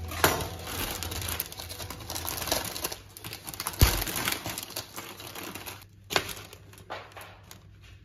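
Paper rustling and crinkling with small handling clicks, a sharper knock with a low thud about four seconds in, thinning out after about six seconds.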